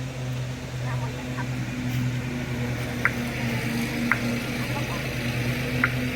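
A steady low mechanical hum, with three short high chirps about a second or two apart in the second half.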